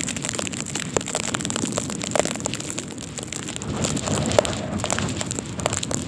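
Blizzard wind buffeting the phone's microphone, with wind-driven snow pelting it in a dense, rain-like patter of small ticks.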